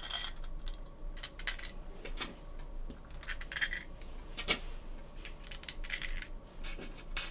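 Small metal screws clicking and clinking against a carbon-fibre drone frame plate as they are handled and set into its holes, in irregular scattered taps.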